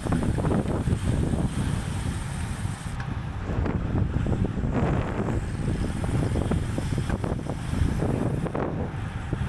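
Wind buffeting the microphone of a camera on a bicycle at racing speed: a dense low rumble that surges and eases constantly.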